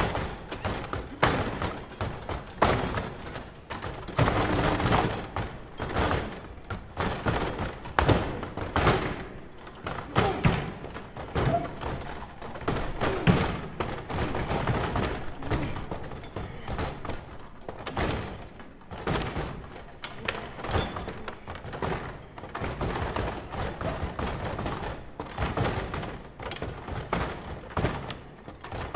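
Foosball table being played hard: dense, irregular volleys of knocks and clacks as the rods are slammed and spun and the players strike the ball and the table.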